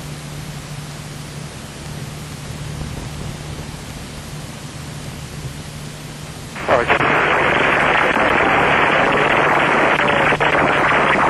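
Cessna 172's four-cylinder engine and propeller running steadily, a low drone under an even hiss of cabin noise. About two-thirds of the way in, a loud, hissy aircraft radio feed cuts in suddenly over the headset audio, carrying the airport's automated weather broadcast.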